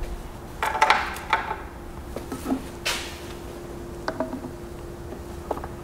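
Knocks, clicks and rattles of a plastic oil bottle and tools being handled at an outboard motor as it is readied for an oil refill. There is a cluster of knocks about a second in and a sharper rattle near the middle, over a steady faint hum.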